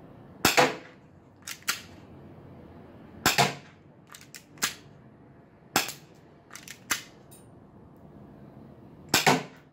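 KWC 24/7 spring-powered airsoft pistol firing single shots: four sharp snaps a few seconds apart. Between them come quieter clicks as the slide is racked by hand to cock the spring for each shot.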